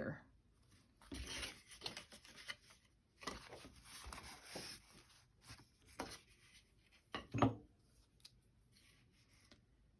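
Sheets of paper being handled in several spells of rustling, with one sharp tap about seven seconds in.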